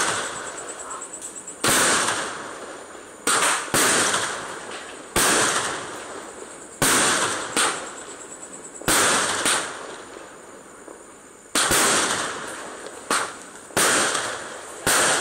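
Aerial fireworks bursting overhead: about a dozen sharp bangs, irregularly one to two seconds apart, each trailing off over a second or so.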